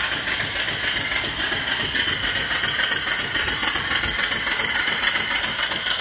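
Small horizontal steam engine running steadily on steam from a vertical boiler, with a steady hiss of steam escaping from the piping.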